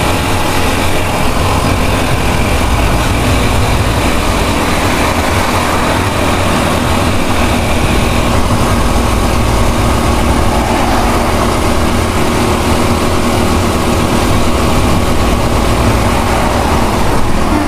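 Steady rumble and road noise of a moving vehicle, heard from on board while it drives along.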